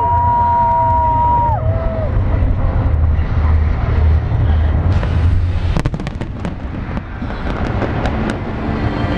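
Fireworks going off: gliding whistle tones in the first two seconds, then a quick cluster of sharp bangs and crackles about five to six seconds in and a few smaller pops near the end, over a steady low rumble.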